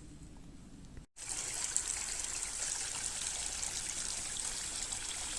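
Steady rush of flowing water, like a small stream, starting suddenly about a second in after a brief cut; before it, only faint outdoor background.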